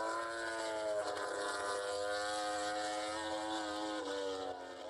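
Repsol Honda MotoGP bike's V4 engine at high revs, its note slowly falling and then jumping up sharply about a second in and again about four seconds in.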